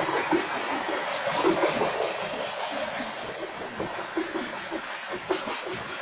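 Freight train cars rolling past at a grade crossing, picked up by a security camera's microphone: a steady rushing noise from the wheels on the rails, with irregular clicks and knocks from wheels and couplers. There are no horn blasts.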